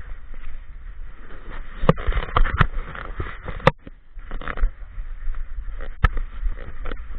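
Rubbing and knocking of an action camera strapped to a walking dog's back: a steady low rumble and rustle, broken by a few sharp clicks, the loudest near the middle and one about six seconds in.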